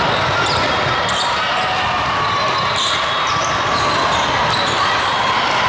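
Steady din of a large hall during indoor volleyball play: many distant voices from players and spectators, with volleyballs being struck and bouncing on the court floors.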